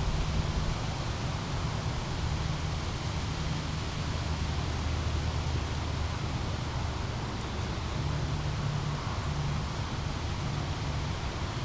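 Small brook flowing steadily, an even rushing babble of water, with a low rumble underneath.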